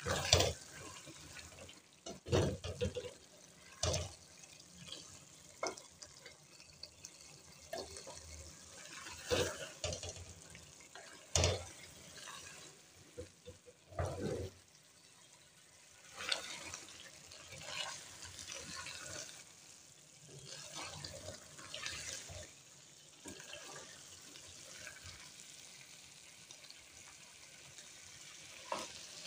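A spoon stirring and scraping beef masala against a steel pot as it fries in oil, with a low sizzle underneath and irregular scrapes and knocks from the spoon. This is the bhuna stage, the meat being fried until the oil separates.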